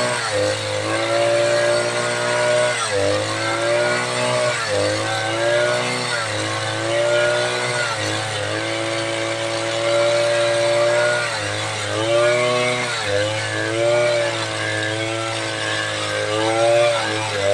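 Two-stroke chainsaw running hard while ripping a teak log into boards. Its pitch sags and picks up again every couple of seconds as the cut loads the engine.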